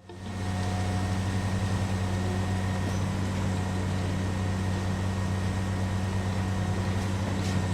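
Cement mixer truck's engine running steadily with an even low hum.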